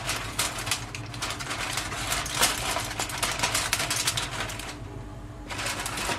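Aluminium foil crinkling and crackling as it is handled and pressed down over a baking tray, a dense run of crackles with a short pause near the end.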